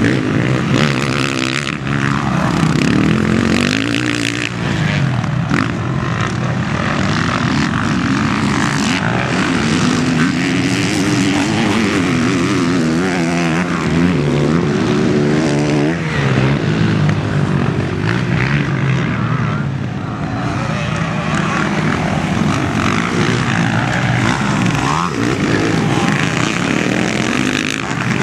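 Motocross bike engines racing, their pitch climbing and dropping over and over as the riders rev up, shift gears and back off.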